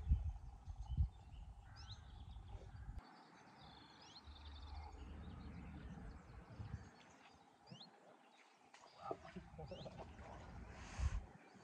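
Small birds chirping and singing, with gusts of wind rumbling on the microphone and a brief burst of noise near the end.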